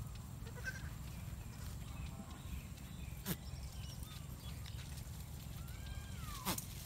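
Goat kids outdoors: a short high-pitched bleat near the end and two sharp snaps, about three and six and a half seconds in, over a steady low rumble.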